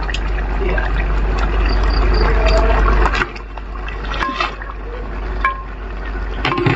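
Thick tomato gravy bubbling hard at a boil in a large metal uruli. About three seconds in the bubbling drops away as fried chicken pieces are tipped in from a perforated steel strainer and stirred with a metal ladle, with a few light metal clinks against the pot.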